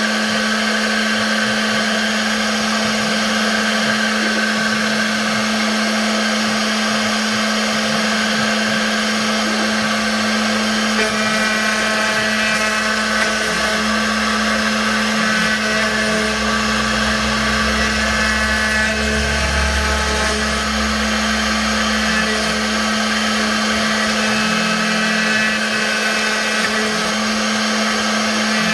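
CNC router spindle running steadily at high speed with a constant whine while cutting lettering into wood. From about halfway in, the cutting noise changes as the tool moves, with a low rumble added for a few seconds.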